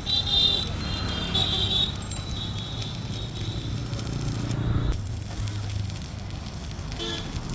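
Electric arc welding on iron: a steady, irregular crackling and sizzling of the arc.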